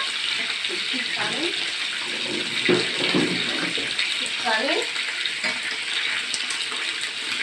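Rabbit meat browning in hot oil in a pan: a steady sizzle.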